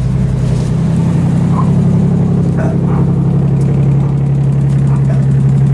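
Nissan 300ZX's V6 engine idling steadily with an even pulse. The owners say the car still has a misfire.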